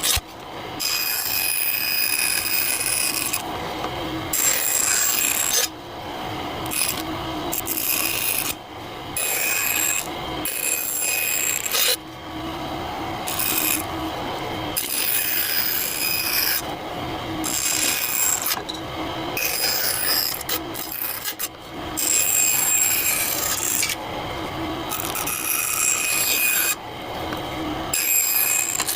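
A hand tool scraping or rasping across wood in repeated strokes, each lasting a second or two, with short pauses between them.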